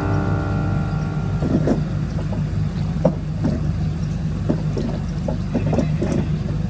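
Ship's engines running with a steady low drone, with scattered short knocks. A held multi-tone sound sits over it for the first second and a half, then stops.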